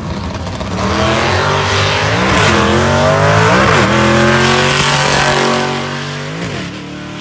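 Fifth-generation Chevrolet Camaro with a manual gearbox accelerating hard down a drag strip. The engine's pitch climbs, then drops at two shifts about two and a half and four seconds in, and the sound grows quieter from about five and a half seconds in.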